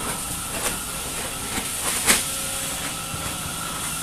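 Steady machinery noise of a tuna longliner's deck, with a few sharp knocks from work on the deck, the loudest about two seconds in.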